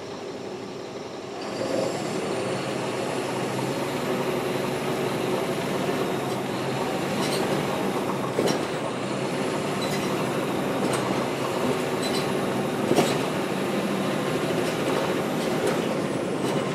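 Caterpillar C13 ACERT diesel engine of a NABI 416.15 transit bus going from idle to pulling away about a second and a half in, then running steadily under load. A few sharp knocks and rattles come through along the way.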